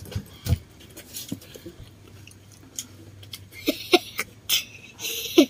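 Clear plastic bag rustling and crinkling in someone's hands in several loud bursts over the last two seconds, after scattered small clicks and taps, with a few short voice sounds.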